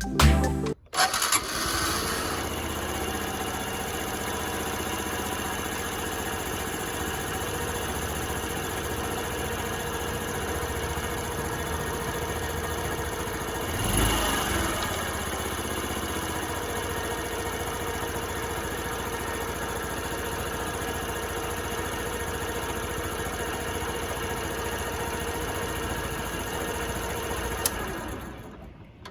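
Honda Super Cub 50 (AA04) 49 cc single-cylinder four-stroke engine running steadily at idle on its new spark plug, with a short rise in level about halfway through. It fades out near the end.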